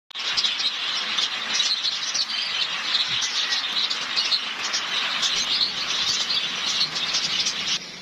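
A flock of small birds chirping constantly, many short high chirps overlapping over a steady hiss; the sound cuts off suddenly near the end.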